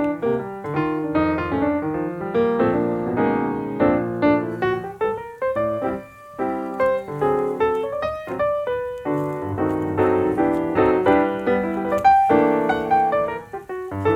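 Background piano music: quick runs of notes and chords.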